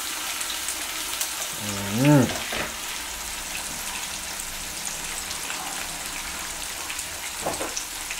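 Seasoned barracuda slices shallow-frying in hot oil in a frying pan, a steady sizzle with fine crackling. A short hum from a voice about two seconds in.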